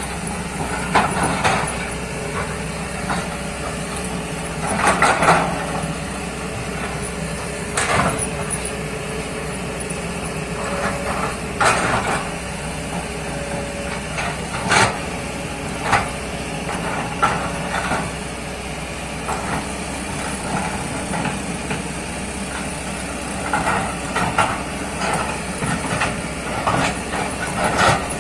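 Kobelco excavator's diesel engine running steadily while digging, with irregular knocks and clanks from the bucket and arm, more of them near the end.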